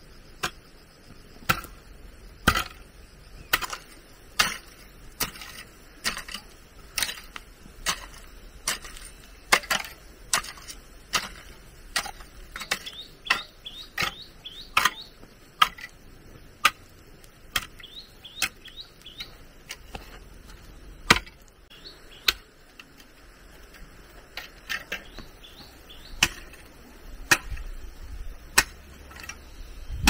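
Steady series of sharp chopping strikes from a hand tool, a little more than one a second.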